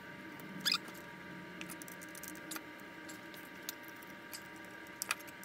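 Scattered light clicks and taps of small metal parts being handled and fitted by hand on a Stihl 028 chainsaw's clutch side, the sharpest about a second in, over a faint steady hum.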